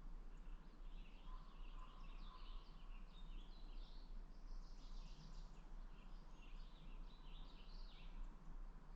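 Small birds chirping and calling in forest, many short calls one after another, faint over a steady low rumble.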